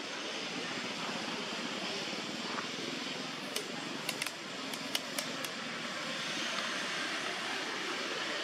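Steady outdoor background noise, with a quick run of about six sharp clicks near the middle.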